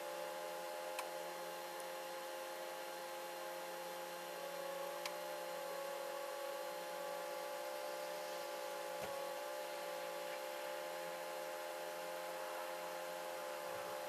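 A steady hum of several held tones with a slight waver, and a few faint ticks.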